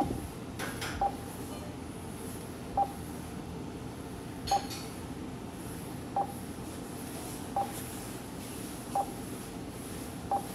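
Short beeps from a touchscreen meal-ticket kiosk, one with each tap on the screen. There are about eight, all at the same pitch and one to two seconds apart, over a low steady hum.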